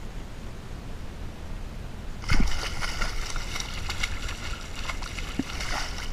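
Water splashing and sloshing against a kayak, starting with a sudden knock about two seconds in and lasting a few seconds before it stops near the end. A low rumble of wind on the microphone runs underneath.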